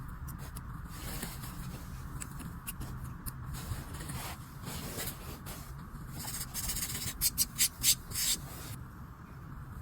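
Hand tools working wood on a carved wooden comb: steady rubbing and scraping strokes, with a quick run of five or six louder, sharper scrapes about seven to eight seconds in.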